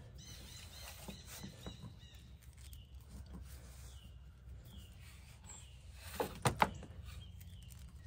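Soft handling noise of braided expandable wire sleeving being pushed and worked down a heavy ground cable, with a couple of sharp clicks about six seconds in. Birds chirp faintly in the background.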